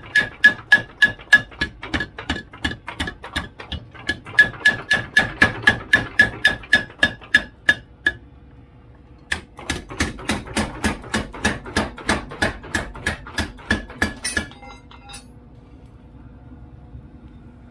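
Steel being hammered on an anvil while a kitchen-knife blade is forged: steady, even blows about four a second, each with a metallic ring. The hammering breaks off for about a second some eight seconds in, resumes, and stops for good about two-thirds of the way through, leaving a faint steady hum.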